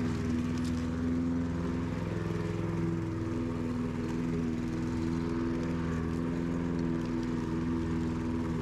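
Petrol walk-behind rotary lawn mower engine running at a steady speed, an even, unchanging engine note.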